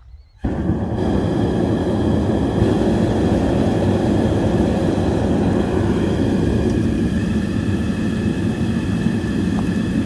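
Propane burners of a VEVOR melting furnace running at full flame, a steady loud rushing roar that comes on suddenly about half a second in; the furnace is firing to heat a crucible of steel.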